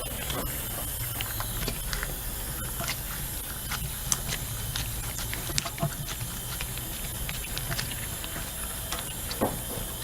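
Steady hiss and low hum of shop background, with scattered light clicks and taps from hand work on a large tire and run-flat insert.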